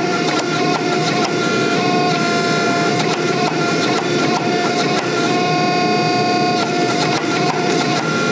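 12-ton Coal Iron Works hydraulic forging press running with a steady whine from its pump, the tone shifting slightly every second or so as the control lever is worked to close the drawing dies on a red-hot steel bar.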